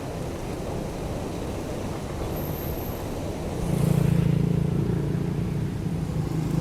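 Diesel engine of a hydraulic excavator running steadily, then growing louder about halfway through and holding there as it revs up under work.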